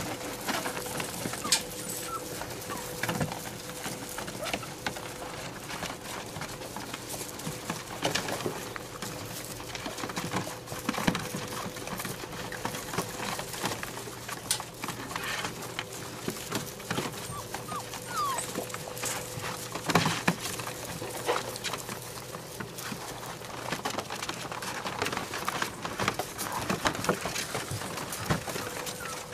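A puppy making occasional small squeaks and whimpers over scattered knocks and rustles, with a steady low hum throughout.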